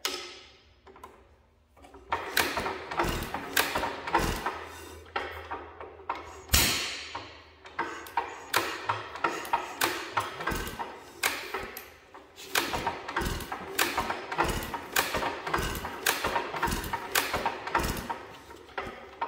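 Antique hit-and-miss gas engine being turned over by hand and coming to life: an uneven run of sharp pops and clicks that settles into a regular beat of about two a second.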